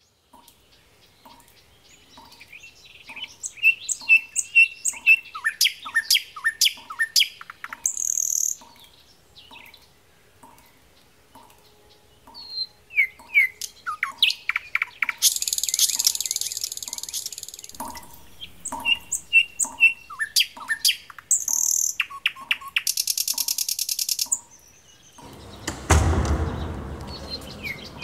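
Musical piece built from bird chirps and calls, many short quick glides, over a soft regular pulse about once a second. Two stretches of high hiss come in around the middle, and a loud, low, rough noise swells in near the end.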